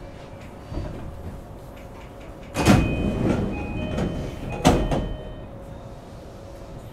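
Passenger doors of a JR East E233 series 5000 subseries train sliding, with two loud thuds about two seconds apart and short chime tones between them, over the steady hum of the train's equipment.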